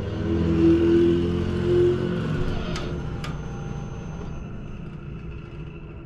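24-volt electric gate rams (linear actuators) humming as the swing gate closes, then loading up against the stop and cutting out about two seconds in. Two sharp clicks follow about a second later. Stopping under load is how this kit senses the fully closed position.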